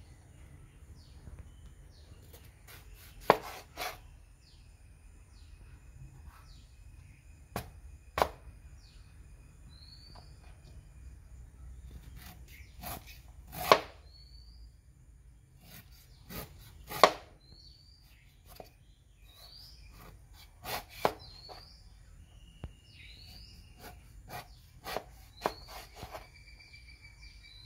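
Large kitchen knife chopping through young jackfruit onto a wooden cutting board: irregular sharp chops, often two in quick succession, every few seconds. Faint short chirps and a thin steady high whine sit underneath.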